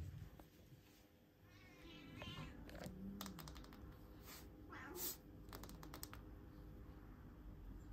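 Domestic cat meowing faintly, a few short calls, with several light clicks and taps between them.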